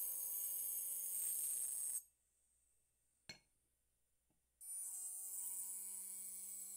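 Handheld electric engraving pen buzzing with a high-pitched whine and a hiss as its tip grinds into wine glass. It stops about two seconds in; a single sharp tap follows, and the tool starts buzzing again just after halfway through.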